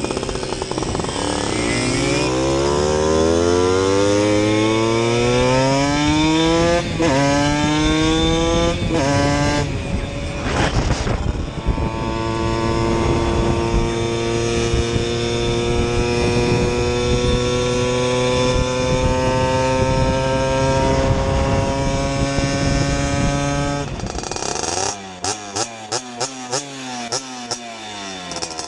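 Simson moped's two-stroke single-cylinder engine, bored to 60 cc and fitted with a Jack Motors exhaust, accelerating through the gears. The pitch rises in each gear and breaks at each shift, then holds a steady high cruise. About 24 seconds in the throttle closes and the engine runs in uneven on-off pulses while coasting.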